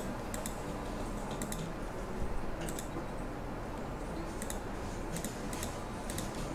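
Scattered single clicks of a computer mouse, about ten, irregularly spaced over a steady background hiss.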